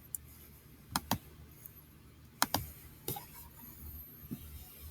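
A handful of sharp, separate clicks on a computer, most in the first three seconds, over a faint low hum.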